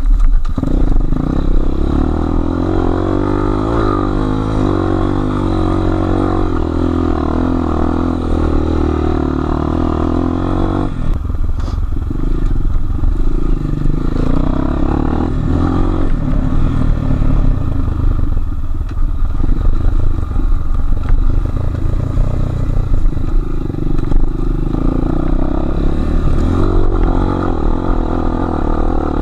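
Enduro motorcycle engine running while being ridden, steady at first. About eleven seconds in the note changes abruptly, and after that the revs rise and fall with the throttle.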